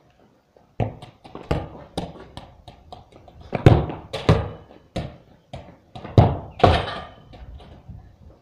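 A string of dull thuds from a football being kicked and bouncing on a concrete yard. The loudest comes about three and a half seconds in, with two more strong ones around six to seven seconds in.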